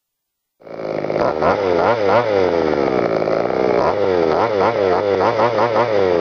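Small two-stroke petrol engine of a large-scale FG RC car, revved over and over so that its pitch rises and falls in quick blips. It cuts in abruptly about half a second in.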